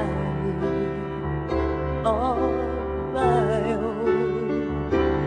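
Background music: a slow, gentle song with piano accompaniment and a voice holding long notes with vibrato, without words.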